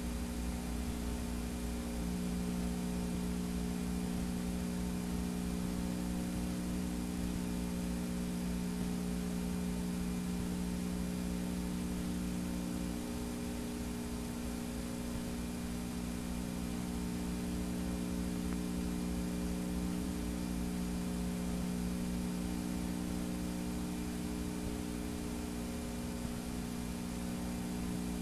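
Steady electrical mains hum with a layer of hiss, as on a blank stretch of old videotape. It holds several low tones together and never changes beyond small shifts in their balance.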